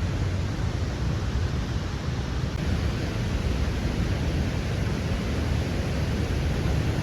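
Lechfall waterfall, water rushing steadily over the falls close by.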